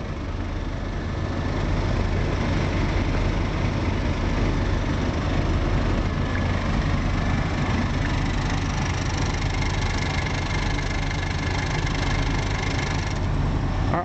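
Hadley Puffy air horn compressor running steadily as it pumps the horn tank up to about 140 psi, with a low hum underneath. Near the end it cuts off as the pressure switch reaches its shut-off pressure.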